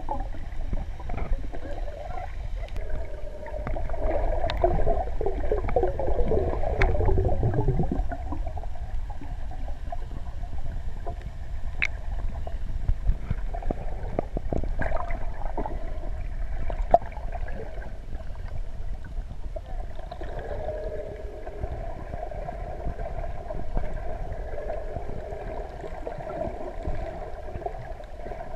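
Muffled underwater sound picked up by a camera submerged in the sea: a steady low rumble and gurgling water, with scattered sharp clicks and a brief rising tone about seven seconds in.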